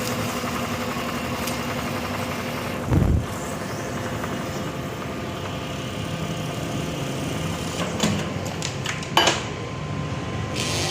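Automatic cutting machine running with a steady mechanical hum. A heavy thump comes about three seconds in, and sharp clacks follow near the end.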